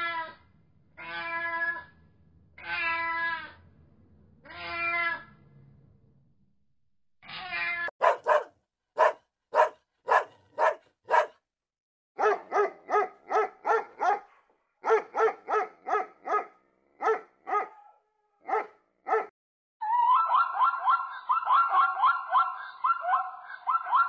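A domestic cat meowing four times, each meow about a second long; then, about eight seconds in, a border collie barking in quick groups of sharp barks until about nineteen seconds; near the end a fast, warbling run of zebra calls begins.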